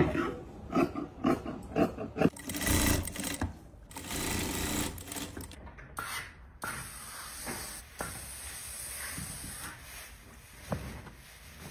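Fabric rustling as it is spread and smoothed by hand, then a steam iron pressing it, with loud hissing stretches.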